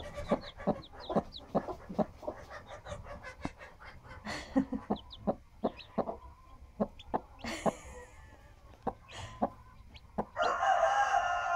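Broody Rhode Island Red hen on her nest clucking in short, evenly repeated clucks, about two or three a second, to her newly hatched chick, which peeps high and thin among them. Near the end a louder, drawn-out sound with a slowly falling pitch comes in.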